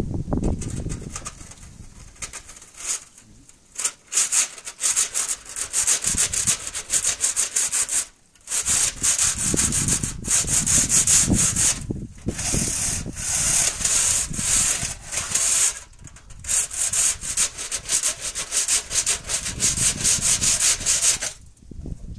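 Quick, repeated scraping and rubbing strokes inside a stove pipe as burnt, puffed-up soot and tar is cleared out. The strokes come in bouts with short pauses and stop near the end.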